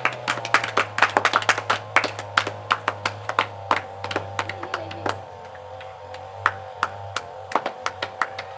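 Several people clapping their hands in an uneven patter, thick for the first five seconds or so and then thinning to scattered claps, over background music with a sustained, wavering tone.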